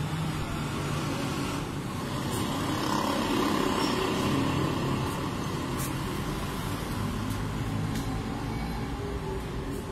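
Steady rumble of road traffic, with vehicles passing.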